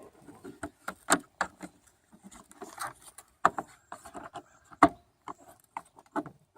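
Irregular sharp plastic clicks and knocks as small spoiler clips are handled and pressed into their grooves on a car's rear wing, the strongest about a second in, at about three and a half seconds, and just before five seconds.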